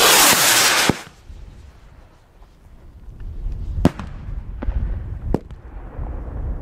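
Fireworks: a loud rushing hiss lasting about a second that ends in a sharp bang, then three sharp bangs a few seconds later, spaced about one and a half seconds apart.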